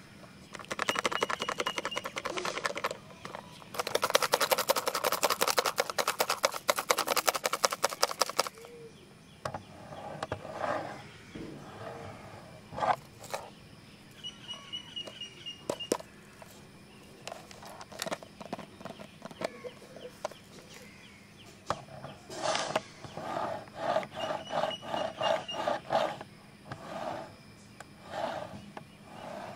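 Fingernails scratching and tapping on a pencil box, in two long runs of very fast, dense scratches within the first eight seconds, then scattered single taps and knocks.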